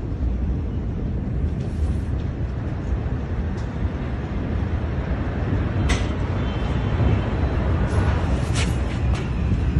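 Steady low rumbling roar picked up by a phone's microphone in the aftermath of a large explosion, with a few short sharp crackles about six seconds in and again near the end.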